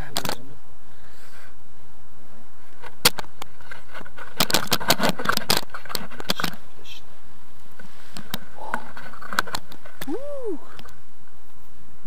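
Paragliding harness gear being handled: scattered metallic clicks and clacks of buckles and clips, in a quick cluster about halfway through. A short rising-and-falling tone sounds near the end.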